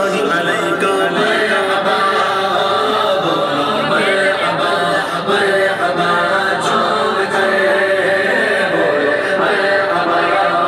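Loud, continuous music led by several voices singing together.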